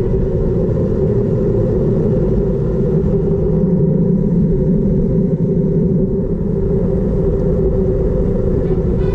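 Steady wind rush and low rumble on a GoPro during a fast bicycle descent, with no clear breaks or changes.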